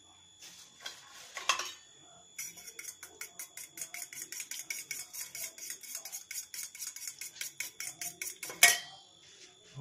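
Fork beating two raw eggs in a stainless steel bowl: rapid, even clinks of the fork against the bowl, about five a second, after a few scattered knocks in the first two seconds. A single loud clink of the fork on the bowl comes near the end.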